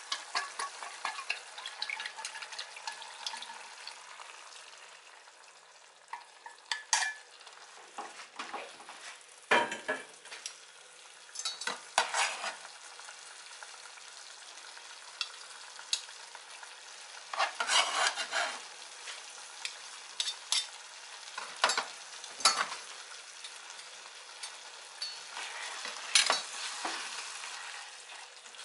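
Mapo zucchini and pork simmering and sizzling in a frying pan, with a utensil scraping and knocking against the pan in short bouts of stirring every few seconds.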